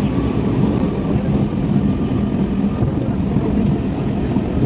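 A moving passenger train heard from inside the carriage: a steady low rumble with a constant fast rattle.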